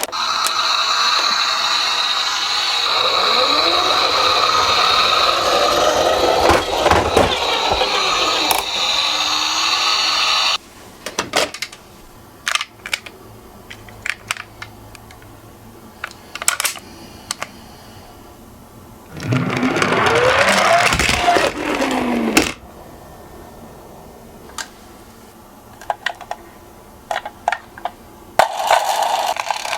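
Toy minicars rolling down a slope: three rattling runs, the first lasting about ten seconds, a second of a few seconds about two-thirds of the way in, and a third starting near the end. Their pitch rises as the cars pick up speed and then falls. Scattered clicks and taps come between the runs.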